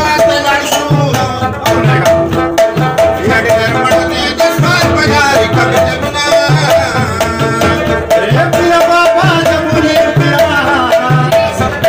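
A rabab being plucked in Pashto folk style over a mangay clay-pot drum struck by hand in a steady beat.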